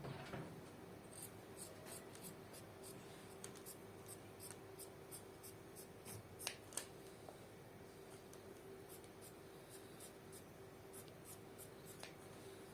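Scissors cutting through cloth: a run of faint, quick snips a few per second, with two louder snips about six and a half seconds in.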